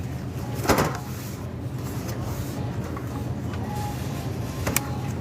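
Steady low hum of grocery-store background noise, with a short knock about a second in and a sharp click near the end.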